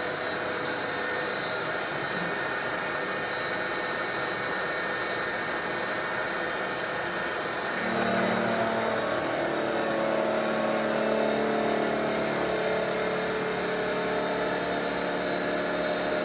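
Bridgeport vertical milling machine running with a steady motor and spindle whir. About eight seconds in, the cutter bites into the workpiece as the table is fed, and a louder cutting sound with several steady pitches joins, a first cut taking chips off the metal.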